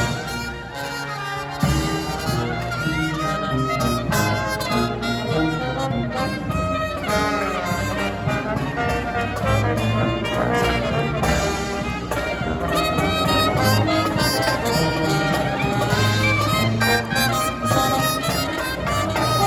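Marching brass band playing live, with trumpets and trombones carrying the melody over a steady beat. A softer passage opens and gives way to the full band about two seconds in.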